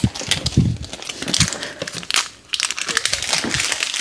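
Packaging being handled and rummaged through, crinkling and rustling in irregular bursts.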